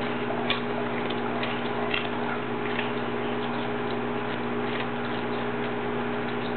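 A dog chewing raw broccoli: scattered short, crisp crunches every second or so, over a steady low electrical hum.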